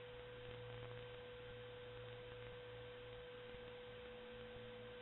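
Near silence: room tone with a faint steady hum and a thin steady tone, and nothing else.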